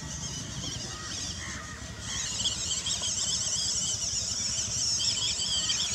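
Electric motor and gearbox of a 1/16-scale WPL Toyota Hilux RC truck whining as it drives over grass, the high pitch wavering with the throttle and growing louder about two seconds in.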